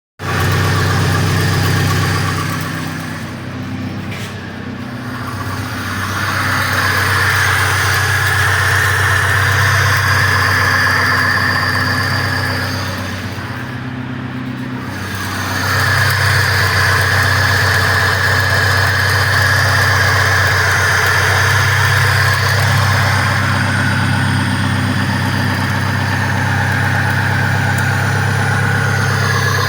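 VAZ 2101 (Lada) engine running with a knock, which the owner traced to a worn piston pin. The sound dips quieter twice.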